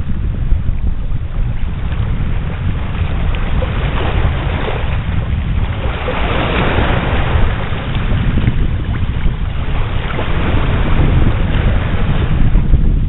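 Wind buffeting the microphone as a steady low rumble, with small waves lapping over the rocky shallows; the rushing noise swells for a moment around the middle.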